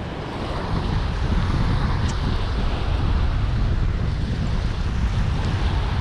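Wind buffeting the microphone in a heavy, fluttering low rumble, over the steady wash of surf on the beach.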